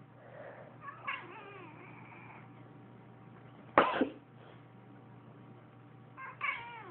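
A domestic cat meows, then a person sneezes once, sharply and loudly, about four seconds in; the cat answers the sneeze with another meow near the end.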